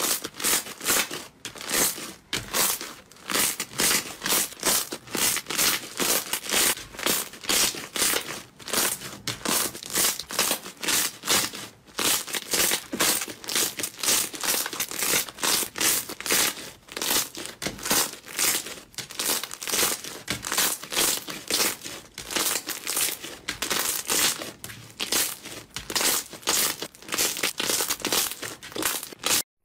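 Fluffy pink slime being kneaded and pressed with the fingers, giving crinkly, crackling squishes in quick repeated strokes, about two to three a second.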